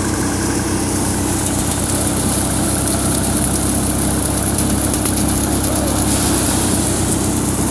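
Tractor-driven paddy thresher running steadily off the tractor's engine, a constant mechanical drone with a steady airy hiss of straw and chaff being blown out.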